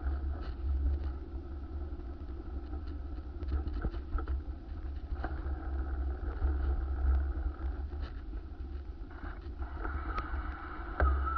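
A steady motor-vehicle drone under heavy, fluttering wind rumble on the microphone, with a few scattered clicks.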